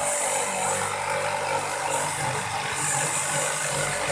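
Electric jigsaw running steadily, its blade cutting through an MDF panel along a curved line.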